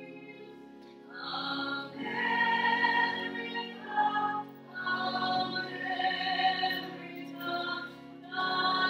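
Singing of sacred music over a steady held accompaniment, in phrases a second or two long with short breaks between them.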